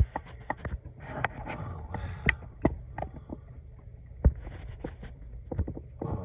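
Irregular light clicks, taps and rubs of a phone being handled close to its microphone while zooming in, with one sharper knock about four seconds in.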